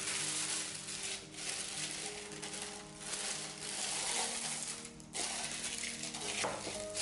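Thin plastic piping bag crinkling and rustling as it is opened out and pulled down over a cup, with a short pause about five seconds in.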